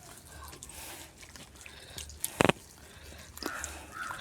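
Hands rubbing and massaging a wet, buttery masala paste into a raw whole chicken: soft squelching and sticky smacking, with one sharper click about two and a half seconds in.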